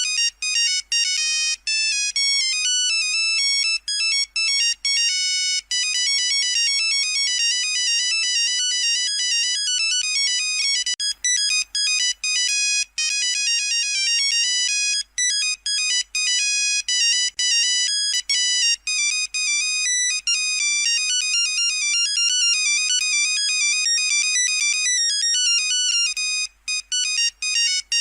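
Nokia 3310 monophonic ringtone playing on a loop: a tune of quick, bright electronic beeps stepping from note to note, with short breaks between phrases.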